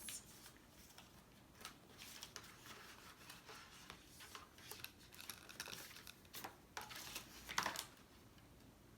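Paper and cardboard packaging being handled and searched through: scattered soft rustles and light clicks, with a louder rustle about seven and a half seconds in.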